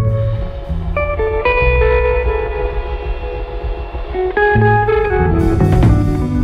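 Background music: a plucked guitar melody moving note by note.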